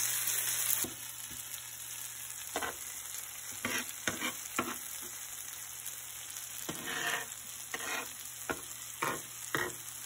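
Fish and masala sizzling in oil in a non-stick tray while a spatula spreads the masala, scraping the tray in about a dozen short strokes. A louder hiss cuts off about a second in.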